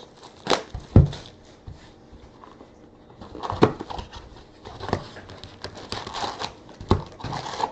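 A few sharp taps and knocks with soft rustling in between, from a trading-card box being handled and opened.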